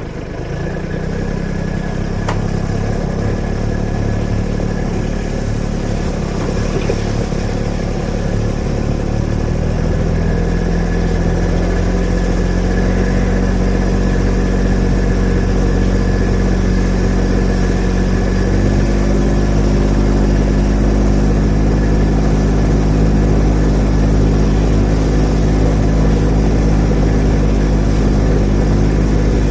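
Riding lawn tractor's engine running steadily as it drives. Its pitch steps up about a third of the way in and again a little past halfway, as the engine speeds up.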